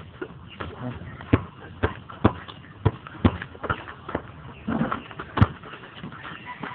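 A basketball bouncing on hard ground in a steady run of sharp thuds, roughly one every half second to second, with voices in the background.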